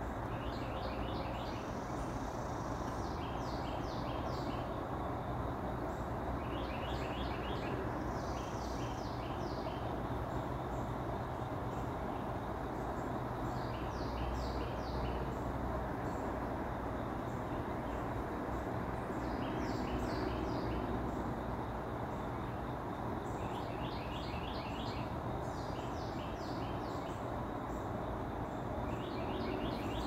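Small songbirds singing bouts of quick repeated high notes every few seconds, over a steady low background rumble.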